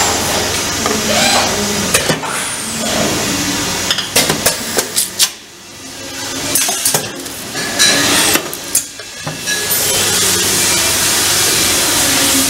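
Manual tray sealing and cutting machine being worked by hand: a run of sharp metal clicks and knocks from its press and lever over a steady noisy background, most of them in the middle of the stretch.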